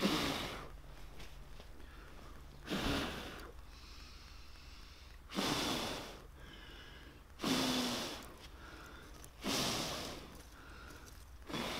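A person blowing hard into glowing embers and brushwood to rekindle a campfire: six long puffs of breath, about one every two seconds.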